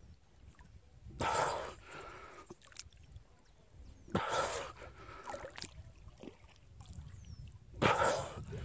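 Water sloshing and splashing close to the microphone, surging three times at about three-and-a-half-second intervals, with lighter lapping in between.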